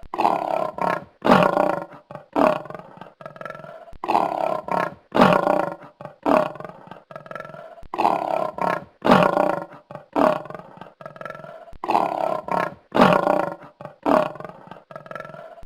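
Lioness roaring in a long series of short, deep calls, about one a second, the loudest coming in pairs every few seconds.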